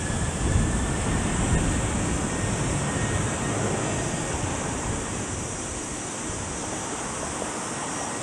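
Steady rushing jet noise from a Boeing 737-800's CFM56-7B engines, with a faint engine whine that rises slightly and fades out about three seconds in. Wind gusts on the microphone.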